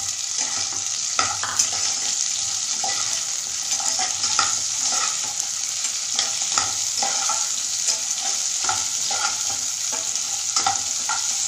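Chopped drumstick (moringa) pods frying in hot oil with onion and garlic: a steady sizzle, with irregular scrapes and clinks of a slotted metal spatula stirring them against the pot.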